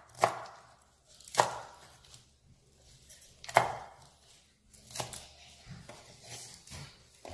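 Cleaver chopping Chinese celery stalks on a wooden cutting board: separate sharp knocks of the blade through the stalks onto the wood, four loud ones spaced a second or two apart, then several softer, quicker cuts near the end.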